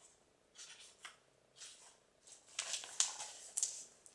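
Pages of a book being leafed through by hand: several soft paper rustles and page flips, louder near the end.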